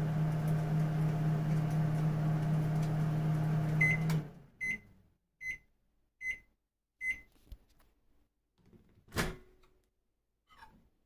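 National (Panasonic) microwave oven running with a steady electrical hum that cuts off about four seconds in as the heating cycle ends. It then beeps five times, about 0.8 seconds apart, to signal it is done. A single loud clunk follows, like the door latch being released.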